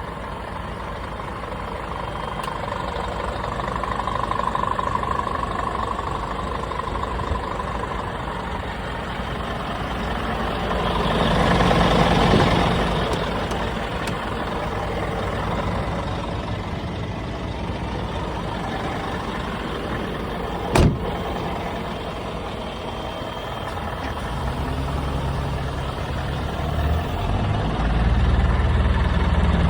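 Scania G490 refrigerated truck idling steadily with diesel engine noise. A broad swell of louder noise comes about twelve seconds in, and a single sharp click near twenty-one seconds. The engine then grows louder and deeper toward the end.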